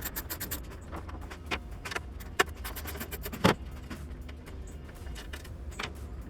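Ratchet and 10mm socket clicking in quick runs while tail-light bolts are backed out, with a few louder metallic clicks between the runs.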